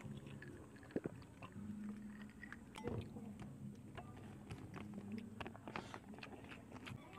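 Close-up chewing of rice and fried pork chop eaten by hand, with soft wet mouth smacks and clicks scattered through. The sharpest click comes about a second in, another near three seconds.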